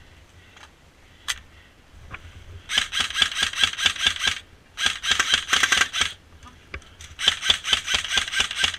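Airsoft gun firing on full auto in three bursts of rapid shots, each lasting one to two seconds, starting about three seconds in. A single sharp snap is heard a little after one second in.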